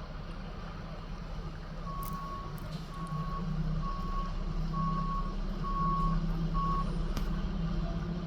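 Reversing alarm of a Mack McNeilus front-loader garbage truck beeping six times, about once a second, over the truck's engine running, which gets louder about three seconds in.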